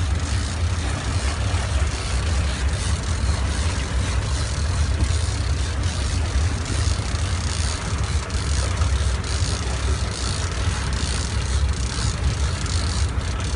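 A fishing boat's engine running steadily as a low rumble, with an even hiss of water and wind over it.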